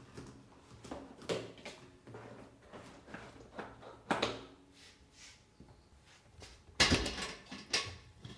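Irregular handling knocks, clicks and clatters, with a louder cluster of clunks about seven seconds in; no vacuum motor is running.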